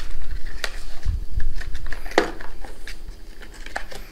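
Handling noise: a few light clicks and taps from small accessory packaging, a small cardboard box and a plastic-wrapped tube of silicone, being handled on a table, with some low thumps about a second in.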